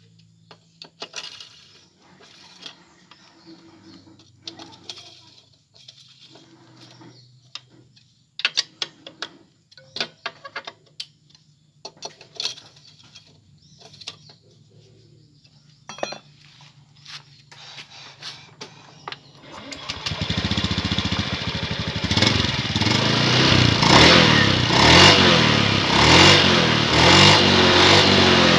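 Scattered clicks and knocks, then about two-thirds of the way in a fuel-injected automatic scooter's engine starts and runs loudly, its level rising and falling.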